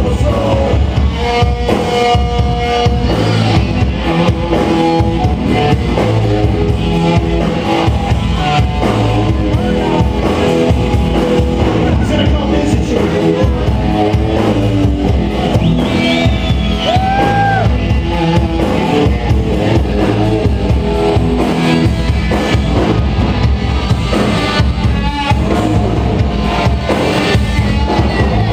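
Live rock band playing loud: electric guitar, bass guitar and drum kit together, without a break.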